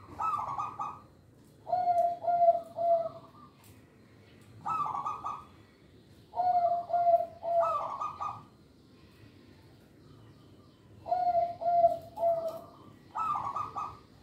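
Zebra dove (perkutut) singing: repeated cooing phrases, each a rolling higher coo followed by a run of three short lower notes, with pauses of a second or two between phrases.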